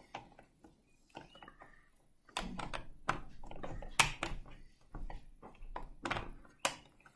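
Handling noise from a plastic digital alarm clock being turned over and handled: scattered clicks and knocks, sparse at first, then busier with a low handling rumble, the loudest knocks about four and six and a half seconds in.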